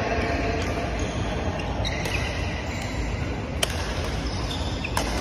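Badminton hall ambience: a steady low rumble broken by a few sharp cracks of rackets hitting shuttlecocks, the loudest about three and a half seconds in.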